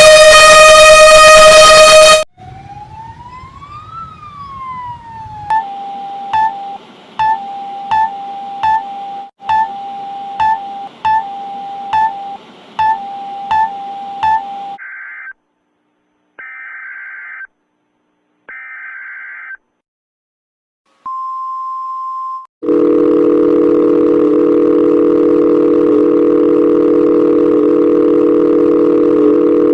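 A run of electronic emergency-alert tones, one after another. A loud buzzing tone cuts off about 2 s in. Then come a tone that glides up and back down, a steady tone broken by short beeps about one and a half times a second, three short tone bursts, and a brief single tone, and from near the end a loud steady two-note tone.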